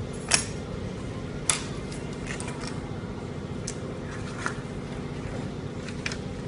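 A steady low hum, with a handful of sharp clicks: the two loudest come in the first second and a half, the rest are fainter and spread through.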